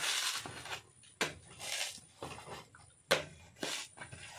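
Coconut being husked: sharp knocks and short rough tearing, scraping rushes as the fibrous husk is split and pulled away, the loudest knock about three seconds in.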